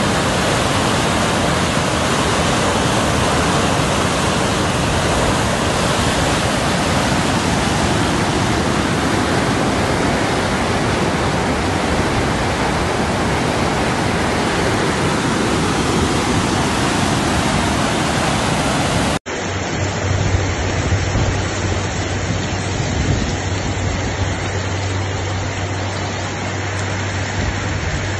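Floodwater rushing down a wadi in spate, a loud, steady roar of churning muddy water. About two-thirds of the way in it cuts to heavy rain falling, with a steady low hum beneath.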